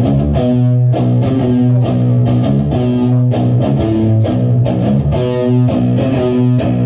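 A rock band playing together: electric guitar and bass guitar riffing over drums, with cymbals struck on a steady beat.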